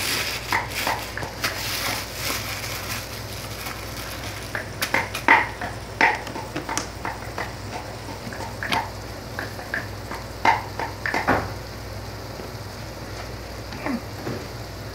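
Sliced onions, green chillies and whole spices sizzling and bubbling in a frying pan on a gas burner: a steady hiss with irregular sharp pops and spatters, thickest in the middle and thinning toward the end, over a steady low hum.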